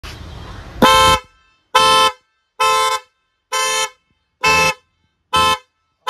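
A pair of chrome-faced 12 V dual-tone car horns sounded in six short, loud blasts, about one a second, as their wires are touched to power. Each blast sounds both tones together. A short rush of noise comes before the first blast.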